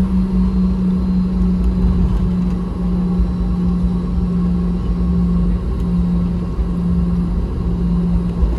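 Cabin noise inside a Boeing 717-200 with its engines running: a steady low rumble and a droning hum that wavers in strength in the second half.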